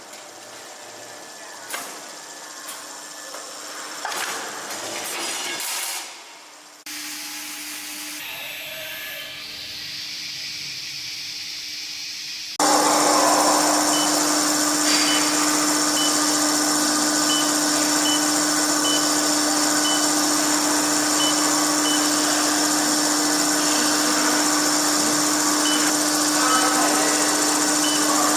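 Automatic copper-tube straightening and chipless cutting machine running. A few clicks come first, then a steady hum. About halfway through, a much louder steady hiss starts, with a short high beep repeating now and then.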